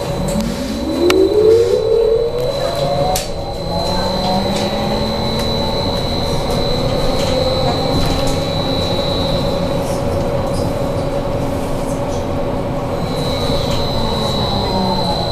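BKM 43300D trolleybus's electric traction drive whining as it pulls away: the whine rises in pitch over the first four seconds, holds steady while cruising, and falls again near the end as it slows. A few sharp clicks sound early on over a steady hum.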